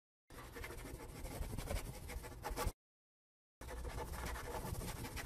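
Felt-tip pen scratching as it draws and writes, in two stretches of about two and a half seconds each that start and stop abruptly, with a second of dead silence between them.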